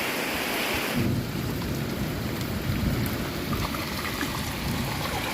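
Heavy rain pouring down in a thunderstorm, with a deep low rumble that comes in about a second in.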